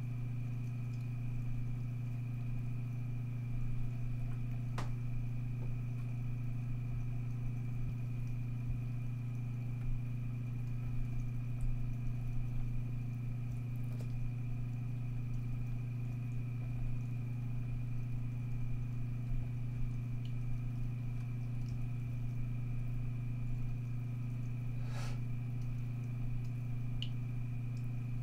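A steady low hum, with faint drips and splashes from a thin stream of tap water running into a bathroom sink, and a few soft clicks.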